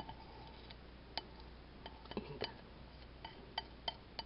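A flat wooden stick tapping and scraping against a glass bowl while scooping wet strawberry scrub into a glass jar: faint, scattered light ticks and clinks, about eight in all.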